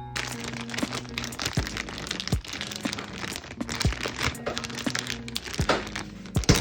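Chicken karaage deep-frying in hot oil: a dense sizzling crackle that starts abruptly and dies away near the end, over background guitar music.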